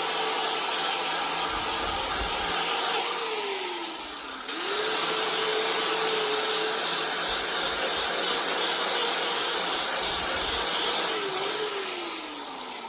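An electric power tool's motor running with a steady whine, winding down about three seconds in, starting up again and running at speed, then winding down again near the end.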